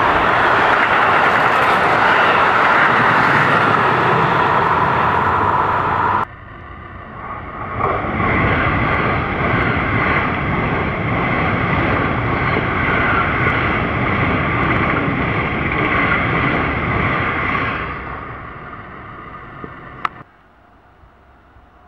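A freight train of container and trailer wagons rolling past close by, with steady wheel and rail noise. After an abrupt cut, an ICE high-speed electric train passes, its rolling noise building about two seconds later, holding steady, then fading out. It ends in a sudden drop to faint background.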